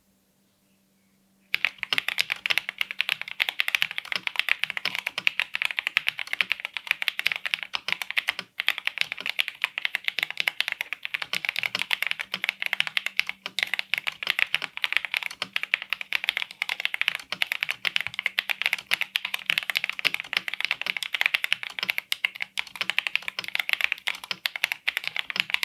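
Royal Kludge S98 mechanical keyboard being typed on quickly and continuously, a dense run of key clicks that starts about a second and a half in.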